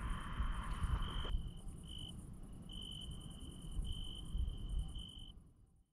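Crickets chirping: a steady high trill that breaks off and resumes every second or so, with a faster, higher pulsing chirp above it, over an uneven low rumble. The sound fades out near the end.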